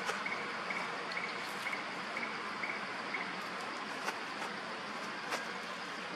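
Insects chirping over a steady hiss: a short high chirp repeats about twice a second and stops about three seconds in, with a few faint clicks.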